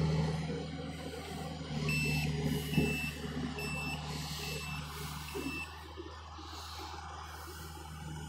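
Diesel engine of a John Deere excavator running steadily, easing off about a second in. From about two seconds in a backup alarm beeps about six times, at a little under two beeps a second, then stops.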